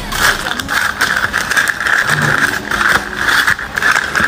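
A translucent paper bag crinkling and rustling as fingers reach into it and pull out stickers, a busy run of quick crackles.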